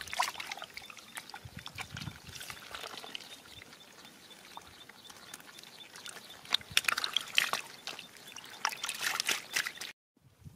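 Shallow muddy water trickling through a dug channel, with stranded fish flopping and splashing in it in several spells, the busiest about two-thirds of the way through. The sound cuts off suddenly shortly before the end.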